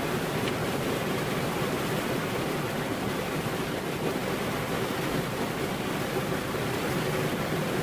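Rain falling steadily, an even rushing noise with no distinct drops or thunderclaps standing out.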